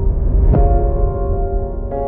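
Ambient background music: sustained held notes over a deep bass, with a low hit about half a second in.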